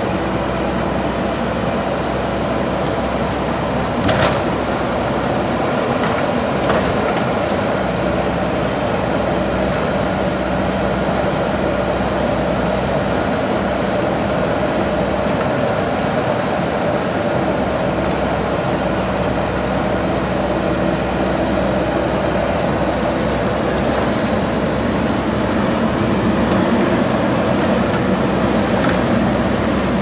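JCB backhoe loader's diesel engine running steadily while the backhoe arm digs soil, with a single knock about four seconds in.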